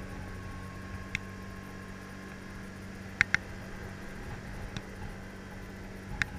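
Kymco scooter engine running steadily at cruising speed with a constant low hum under road and wind noise, muffled as if heard through a camera housing. A few sharp clicks cut through, including a quick pair about three seconds in.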